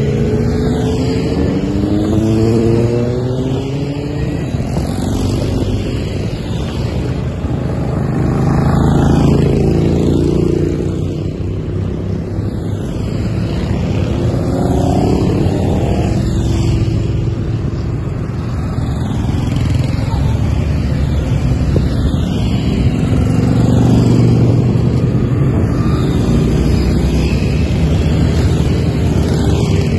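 A steady stream of motorcycles riding past one after another. Their engines rise in pitch as each accelerates away, and the sound swells several times as bikes pass close.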